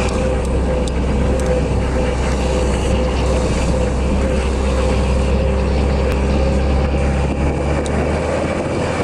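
Engine and road noise of a moving vehicle, heard from on board: a steady low drone with a constant tone above it and a haze of rushing noise. The deepest rumble drops away near the end.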